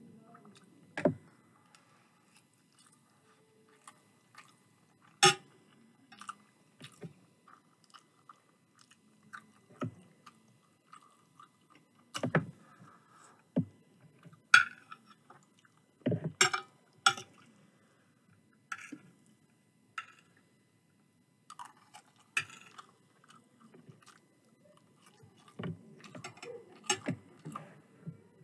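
Close-miked chewing and mouth sounds from someone eating chicken curry and rice. About a dozen sharp clicks and clinks come at irregular intervals, from a metal spoon scooping against a ceramic plate.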